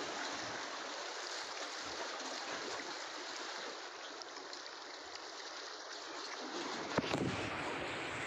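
Steady rushing wash of sea water against the breakwater's rocks and concrete blocks, with a single sharp click about seven seconds in.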